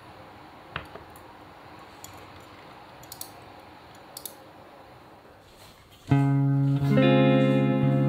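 Quiet room tone with a few light taps and clicks, then about six seconds in, background music of plucked guitar starts abruptly and is the loudest sound.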